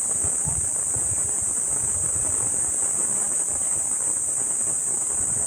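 Wind buffeting the microphone in uneven low gusts, under a steady high-pitched hiss.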